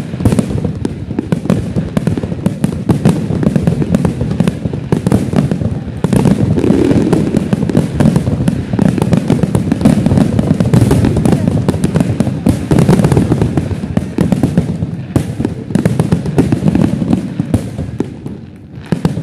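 Fireworks finale: a dense, unbroken barrage of aerial shells booming and crackling, dying down near the end.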